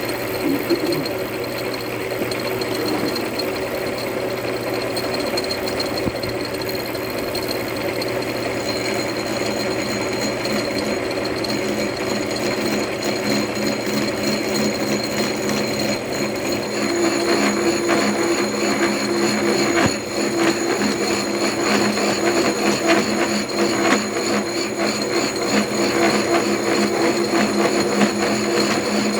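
Milling machine running, its cutter taking a cut in the tool holder workpiece: a steady motor whine with a dense, gritty cutting sound. The sound gets louder and heavier about seventeen seconds in.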